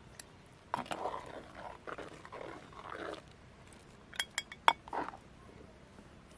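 Steel ladle stirring dal dhokli in a clay pot, with irregular scraping and sloshing. About four seconds in comes a quick run of four sharp, ringing metallic clinks of the ladle.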